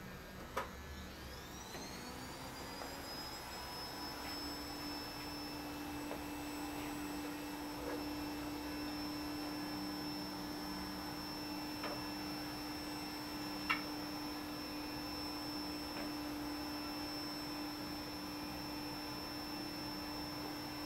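A small electric motor spinning up: a whine rises quickly in pitch and settles into a steady high whine over a low hum, with a few faint clicks.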